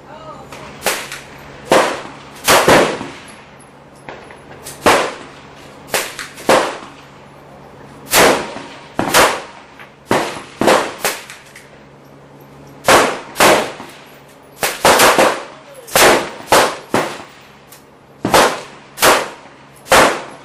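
Semi-automatic 5.56 mm AR-15 rifle firing single shots, more than twenty at uneven spacing, sometimes two or three in quick succession.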